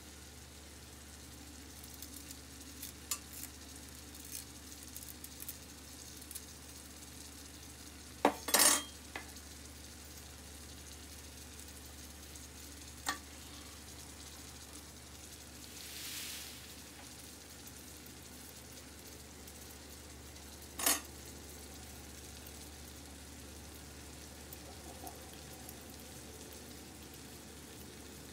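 Kitchen utensils being handled over a steady low hum: light clicks, and sharp knocks of a knife, a vegetable peeler and a stainless steel pot, loudest in a short cluster about eight seconds in and again at about thirteen and twenty-one seconds. Near the end, faint scraping of a peeler on a potato.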